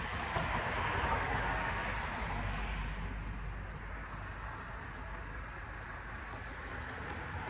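Ceiling fan with damaged, drooping blades spinning, a whirring rush of air that swells about a second in and then dies down.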